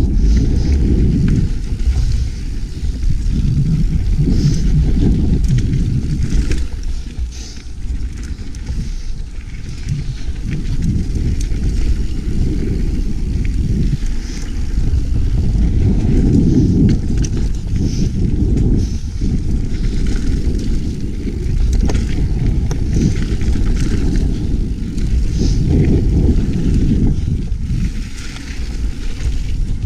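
Mountain bike riding forest singletrack: tyres rolling over dirt with wind rumbling on the microphone, swelling and easing every few seconds with speed.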